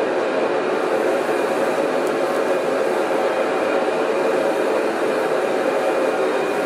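Forge running with a steady rushing noise and a faint hum in it.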